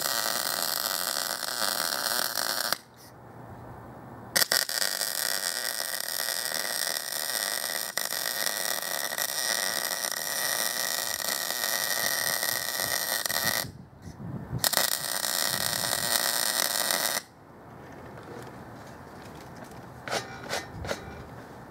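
Electric arc welding on a steel sawhorse: a steady crackling hiss in three runs. The first lasts about three seconds, the second about nine seconds and the third about two and a half seconds, with short breaks between them. After that the arc stops and a few light clicks follow.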